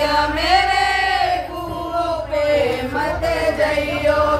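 A group of women singing a Hindi devotional bhajan to Krishna together, unaccompanied, in long drawn-out sung lines.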